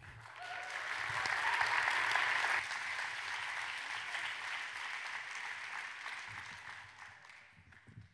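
Large audience applauding, building up within the first second or so and slowly dying away near the end.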